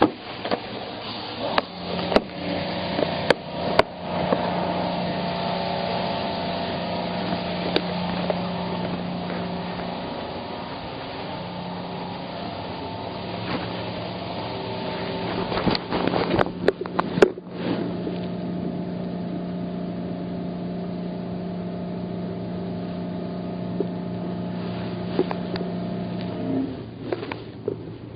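Yamaha F225 four-stroke outboard engine running steadily, with a few sharp clicks and knocks a couple of seconds in and again about halfway through.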